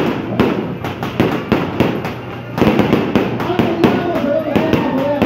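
Aerial fireworks bursting overhead, many sharp bangs in quick, irregular succession.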